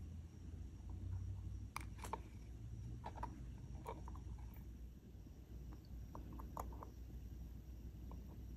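Faint small clicks of metal tweezers against tiny glass filati pieces and a metal pendant bezel as the pieces are picked up and set in place, coming in a few scattered clusters over a low steady hum.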